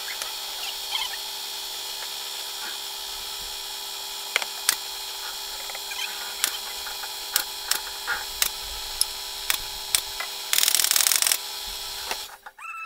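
Pneumatic nail gun firing nails into the joints of plywood speaker-box panels: about ten sharp shots, half a second to a second apart, over a steady machine hum. Near the end comes a loud burst of hiss lasting under a second, and the hum cuts off soon after.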